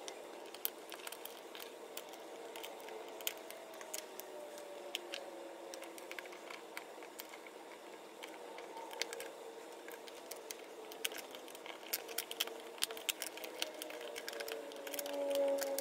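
Small objects being handled and set down, making scattered light clicks and taps, over faint background music that swells near the end.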